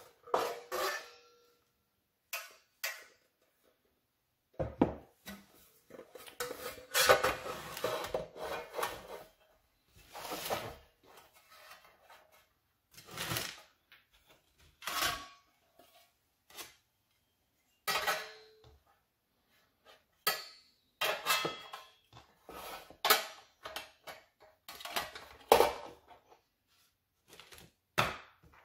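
Thin galvanized steel panels and brackets of a raised garden bed kit being handled, set down on a wooden workbench and fitted together: repeated metallic clanks, rattles and scrapes, some with a brief ringing note.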